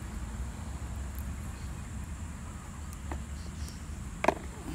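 Outdoor background of a steady high insect drone over a low rumble, with a small click about three seconds in and a sharper click near the end as hands work a knife, fish bait and a plastic tackle box.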